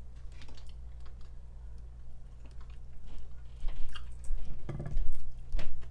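Close-miked chewing of mac and cheese pizza: irregular mouth noises that grow louder in the second half.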